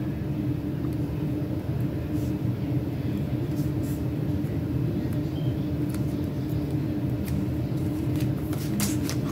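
A steady low hum, with a few light clicks and ticks from a pointed tool picking at sticker sheets, several coming close together near the end.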